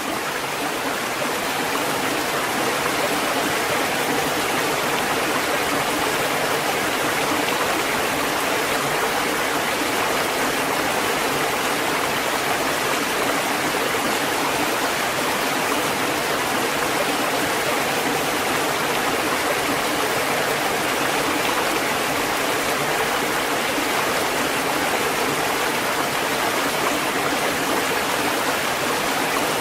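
Waterfall rushing: a steady, even roar of falling water that fades in over the first second or so.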